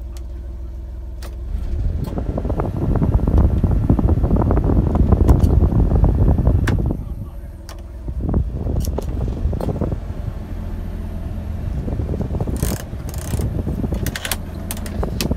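Mini truck's heater blower fan running, a steady rushing that comes on strongly about a second and a half in, drops away briefly near the middle and comes back a little lower as the fan lever is moved. The plastic heater-control sliders click several times.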